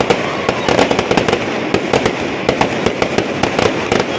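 Many sharp cracks and pops, irregular and closely spaced, over the steady noise of a large crowd.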